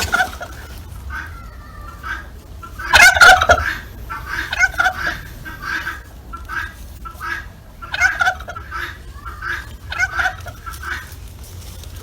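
Domestic turkey gobbling: a series of quick rattling gobbles, the loudest about three seconds in, with further gobbles around five, eight and ten seconds in.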